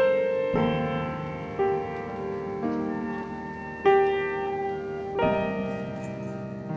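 Piano playing a slow passage of sustained chords, a new chord struck about every second and left to ring and fade.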